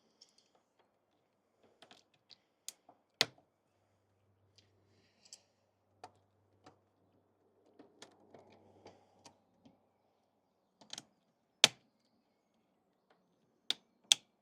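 Sharp plastic clicks and knocks of hose clips and a vacuum pipe being worked loose from the vacuum pump, irregular and scattered, with the loudest snaps about three seconds in and a cluster near the end.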